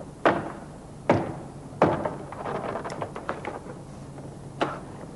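Mk1 VW Golf Cabriolet rear side trim panel being pried loose with a flat plastic lever and pulled away: four sharp clacks as it comes free, the last near the end, with softer rattling of the panel in between.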